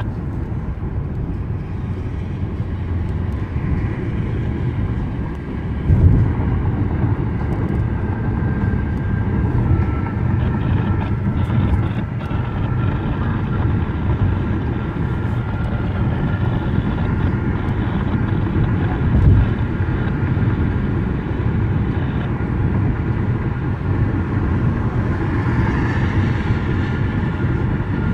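Steady road and engine noise inside a car cruising on a highway, a low rumble with a faint high whine over it in the second half. There is a bump about six seconds in and another at about nineteen seconds.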